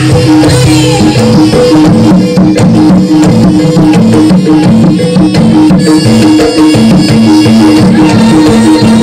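Loud jaranan accompaniment music: a gamelan-style ensemble of drums and tuned metal percussion playing a steady, repeating pattern of short notes.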